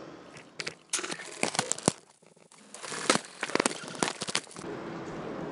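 A stiff translucent plastic sheet crinkling and crackling as hands slide and flex it over a book cover, in two spells with a brief pause between.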